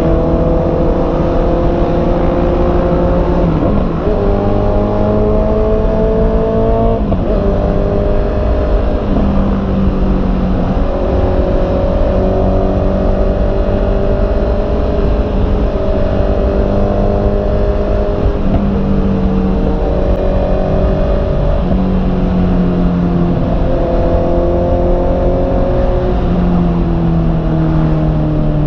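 Honda CB650R's inline-four engine pulling under way, its note climbing slowly and dropping sharply at each gear change, about half a dozen times, over a low rumble of wind noise.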